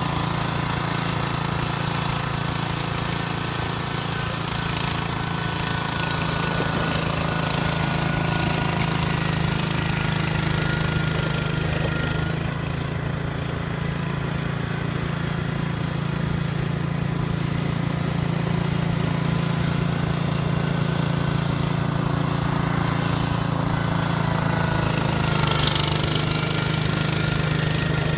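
Vintage John Deere garden tractor's small engine running steadily under load while plowing snow, with a fast, even engine beat and no let-up.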